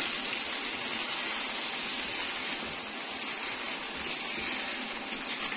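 Masala fish curry sizzling steadily in the pan, a continuous even hiss.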